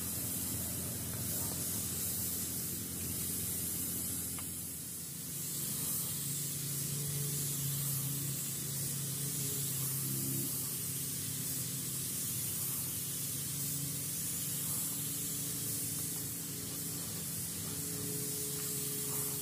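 Compressed-air gravity-feed paint spray gun hissing steadily as it sprays paint, with a low steady hum underneath.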